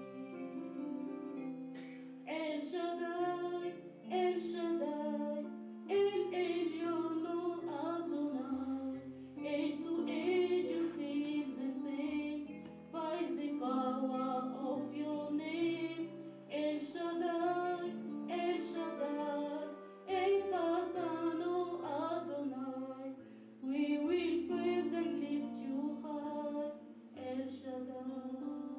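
Worship song: a woman's voice singing in phrases over instrumental accompaniment with a stepping bass line.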